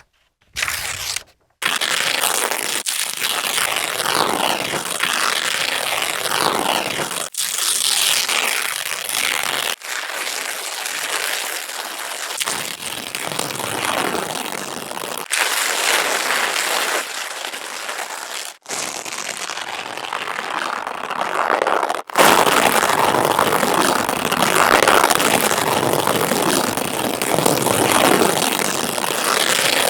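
Paper being worked by hand in a string of separate takes, a continuous crackling, rustling noise; each take ends in a sudden cut to the next, about seven in all.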